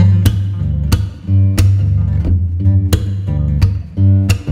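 Background music: guitar and bass over a steady beat.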